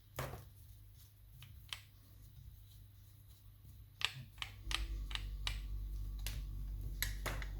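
Scattered sharp metallic clicks and taps as a lever mortice lock is handled and opened up to get at its levers; a steady low hum comes in about two-thirds of the way through.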